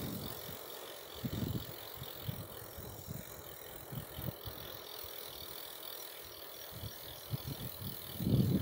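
Bicycle coasting with its rear freewheel ticking, and occasional brief low wind buffets on the microphone.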